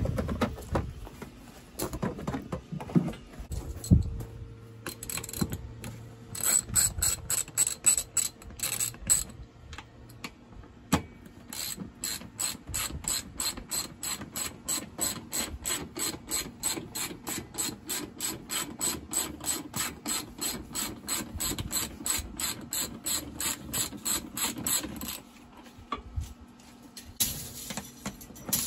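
Hand ratchet wrench clicking in long, even runs of about three to four clicks a second as bolts are worked loose, after a few loud knocks in the first few seconds.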